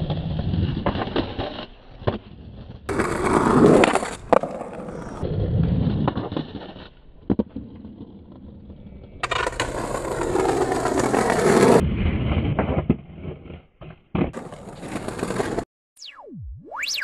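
Skateboard wheels rolling over stone paving, with sharp knocks and clacks of the board, in several short sections that start and stop abruptly. Near the end the rolling stops and a thin electronic tone glides down and then back up.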